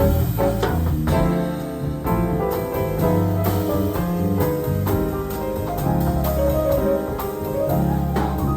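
Live jazz piano trio playing a tune: piano melody and chords over a walking bass line and drums.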